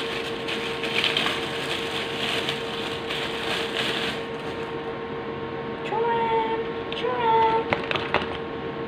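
Rustling and crackling as a rubberized toy and its plastic packaging are handled, for about four seconds. It is followed by a few sharp clicks, over a steady electrical hum.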